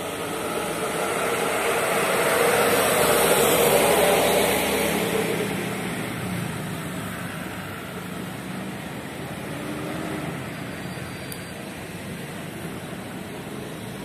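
Diesel-electric locomotive running light at low speed, its engine growing louder to a peak about four seconds in as it passes, then fading to a steady hum.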